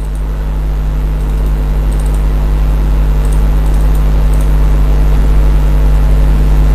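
Steady low electrical hum with a buzzy edge, growing gradually louder, with a few faint ticks on top.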